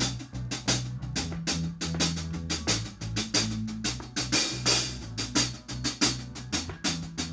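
Band music kicking in suddenly: a drum kit playing a steady beat over a bass line.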